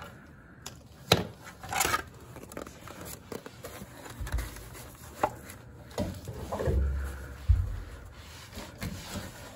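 Handling noise from protective gear and a cordless drill fitted with a wire wheel: scattered knocks, scrapes and a few dull thumps, with the drill not running.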